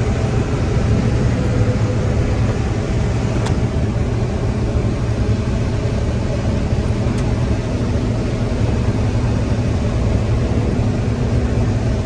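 John Deere 9760 combine running steadily while harvesting corn, heard from inside the cab: an even, low-pitched machine drone of engine and corn head that does not change.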